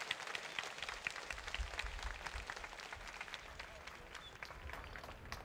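Crowd applauding, the clapping thinning out and growing quieter over the few seconds.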